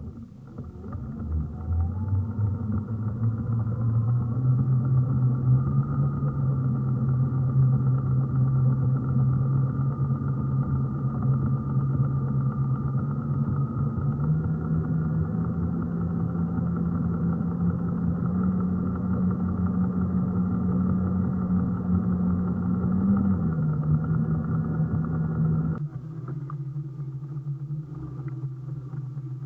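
Electric motor of a battery-powered outrigger banca running, its whine rising in pitch over the first few seconds as it spins up, then holding steady with a small step up about halfway. Near the end the sound changes abruptly and drops in level.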